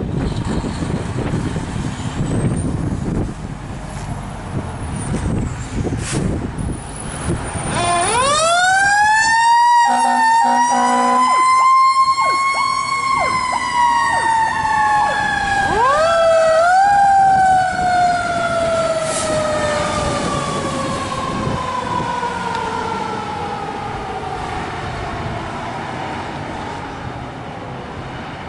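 Fire engine siren winding up quickly about a third of the way in, winding up again about halfway through, then slowly falling in pitch and fading: the spin-up and long coast-down of a mechanical siren. Diesel engine rumble from the fire trucks underneath.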